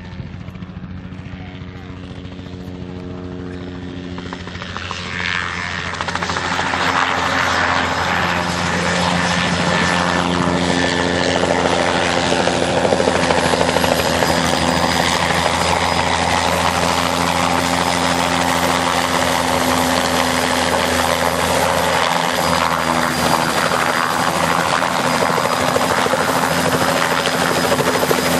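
Bell 206 JetRanger III helicopter flying in close and low: the beat of its main rotor and the whine of its Allison 250 turboshaft engine grow louder over the first several seconds as it approaches, then hold steady and loud with a thin high whine.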